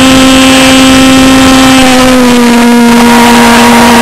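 Model pulsejet engine of an RC boat running flat out: a loud, steady drone with a rough edge, its pitch sagging slightly about halfway through.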